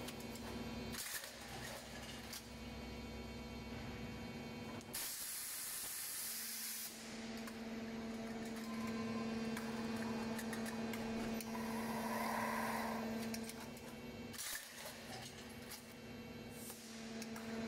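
Steady electric hum of an automatic vertical pallet strapping machine, its low tone breaking off briefly a few times, with a short hiss about five seconds in.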